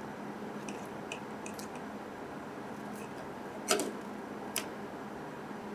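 Small, faint clicks and ticks of fingers and fingernails handling a hard plastic Tamiya Mini 4WD body shell, with the sharpest click a little before the four-second mark and another about a second later, over a steady low hum.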